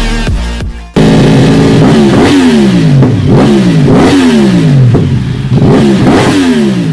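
Yamaha YZF-R1's crossplane inline-four revved on a paddock stand in a series of quick throttle blips, the revs falling away after each one. Very loud, it starts abruptly about a second in, right after the end of a music track.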